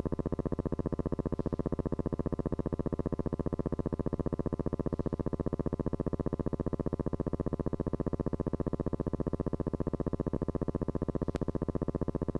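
Steady electrical buzz on an old film soundtrack, a fast even pulsing that does not change, with one faint click near the end.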